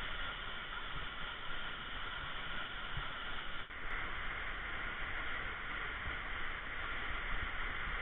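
Waterfall pouring into its plunge pool: a steady rushing noise, with a brief dip about three and a half seconds in.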